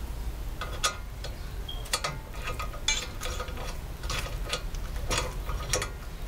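Hand ratchet clicking in short, irregular strokes as a brake caliper mounting bolt is run in.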